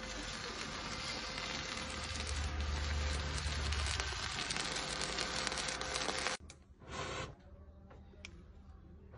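Electric arc welding on a steel truck deck: the arc crackles and sizzles steadily, with fine rapid clicks and a steady hum under it, then stops abruptly about six seconds in. A short burst of hiss follows about a second later.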